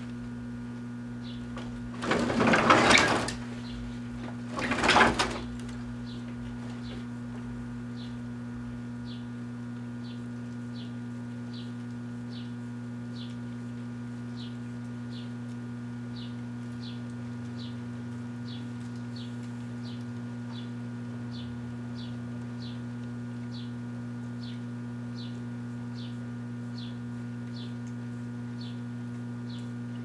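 Large Kenmore microwave oven running with a steady electrical hum while heating a whole spaghetti squash. A short high chirp repeats about one and a half times a second, and two loud bursts of noise come about two and about four and a half seconds in, the first a little over a second long, the second shorter.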